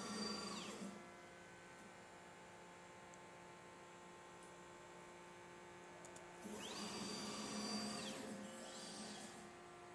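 Stepper motors of a CDPnP desktop pick-and-place machine moving its head. Each move gives a whine that rises in pitch, holds, then falls as the motor speeds up and slows down. One move comes right at the start and a longer one begins about six and a half seconds in, with a steady electrical hum in between.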